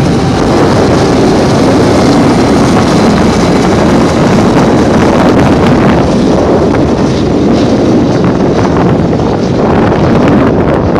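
Freight train passing close by: the last of the BNSF diesel locomotives go by at the start, then a steady, loud rush of steel wheels on rail as double-stack intermodal container cars roll past, with wind buffeting the microphone.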